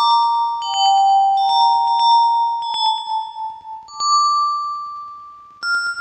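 Yamaha PSR-36 keyboard playing a melody of held, ringing high notes through a Vivlex Time Maker delay pedal set to its Pure delay, each note followed by quick echo repeats. The sound fades away after about four seconds, and a new phrase begins near the end.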